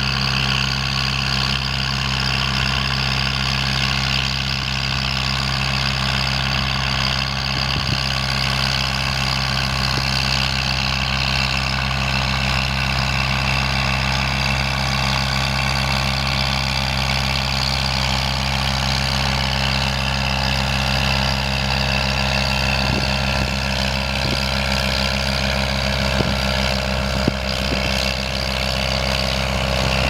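Leyland 462 Synchro tractor's four-cylinder diesel engine running at a steady speed under the load of pulling a plough, a constant drone with a few light clicks near the end.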